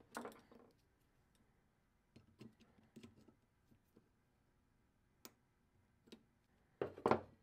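Small metallic clicks and taps as snap-ring pliers work the retaining ring in the head of a vintage Craftsman Flying V ratchet, scattered through, with the loudest quick cluster near the end.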